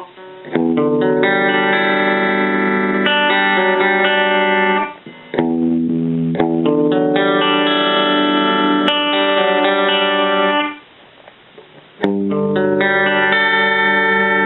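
Electric guitar played through a Roland Jazz Chorus combo amplifier: ringing chords held and let sustain, in three phrases, with a short break about five seconds in and a longer pause near eleven seconds.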